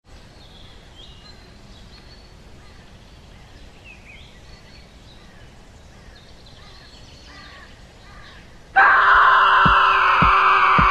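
Faint bird chirps over a quiet outdoor background, cut off about nine seconds in by the sudden loud start of music with a low thump about every 0.6 seconds.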